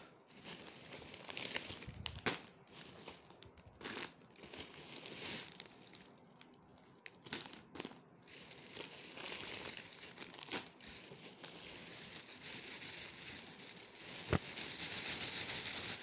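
Plastic snack packets and a plastic bag crinkling and rustling as they are handled, in uneven bursts with a few sharp clicks, louder and more continuous near the end.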